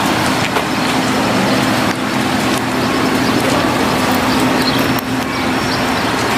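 Street traffic noise: an even rush with a steady low engine hum from a nearby motor vehicle.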